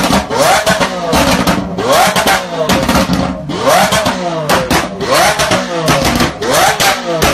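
Lamborghini Aventador V12 engines revved over and over in short blips, about one rising rev a second, with exhaust pops and crackles between the revs.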